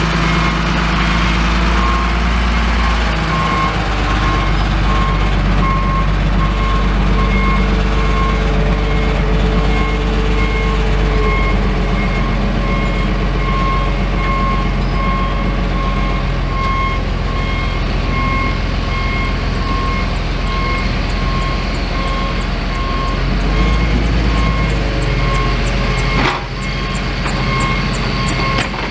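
Wheel loader's diesel engine running steadily as the machine manoeuvres, with its backup alarm beeping in a regular on-off pattern over the engine. A single sharp knock sounds near the end.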